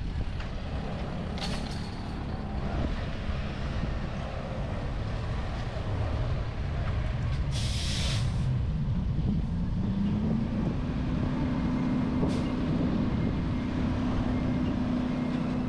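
Fuel truck's diesel engine running, with a short hiss of air brakes being released about eight seconds in. Around ten seconds the engine revs up and holds at a higher speed.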